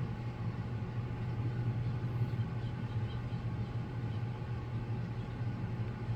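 A steady low hum with a thin constant whine above it, unchanging throughout.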